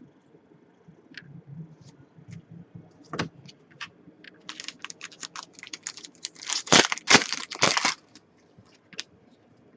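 Hockey trading cards and their pack wrapper being handled: scattered light clicks, then a dense run of crinkling and crackling about halfway through, loudest just before the end of that run.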